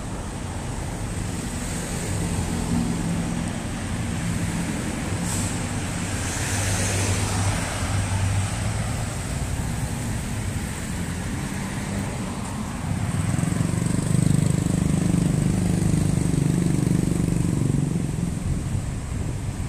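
Steady road traffic on a busy city street: car, van and motorbike engines passing. It grows louder about two-thirds of the way through as vehicles pass close by.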